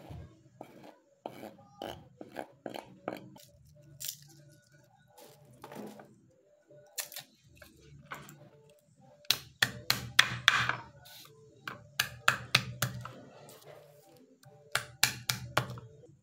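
Chef's knife on a wooden cutting board, scraping chopped onion and then knocking down on garlic cloves: sharp, irregular knocks and scrapes, coming in quick clusters in the second half.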